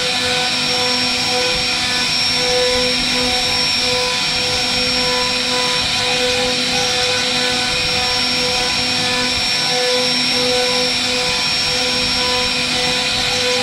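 CNC router spindle running at high speed as its small carving bit cuts a relief into a wooden door panel. It makes a steady high whine over a constant hiss, with lower tones that waver as the bit bites into the wood.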